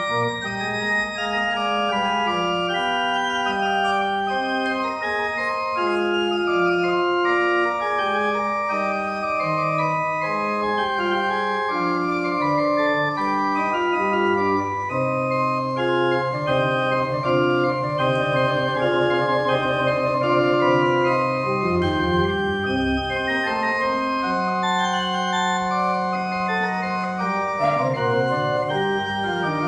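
Organ playing a postlude after the closing blessing: several voices of held and moving notes over long sustained bass notes.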